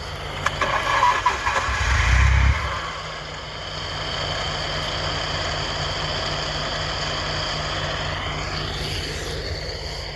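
Car engine running steadily under a steady high whine, with a loud low burst of engine sound about two seconds in.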